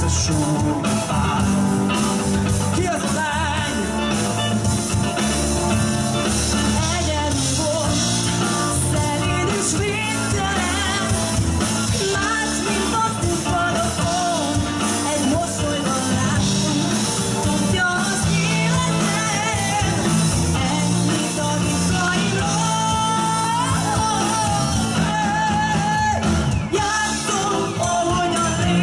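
Live rock band playing a song, with a woman singing lead over electric bass guitar and drums.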